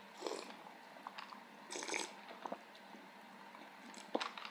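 A person drinking from a cup: two short, soft drinking sounds about a second and a half apart, then a few faint mouth clicks.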